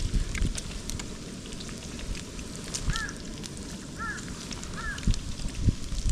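Wind rumbling on the microphone, with scattered crackling clicks. Three short, high chirps come about a second apart in the second half.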